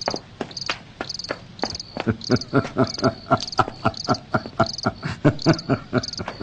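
Crickets chirping in a steady, even rhythm. From about two seconds in, a man laughs quietly in a quick run of short pulses.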